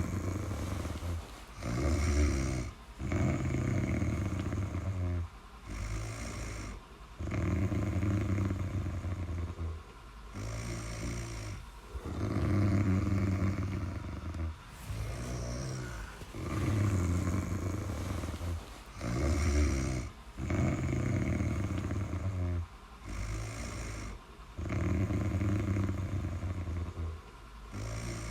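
Snoring in a steady sleeping rhythm: low snores lasting a second or two, repeating every few seconds, with softer breaths between them.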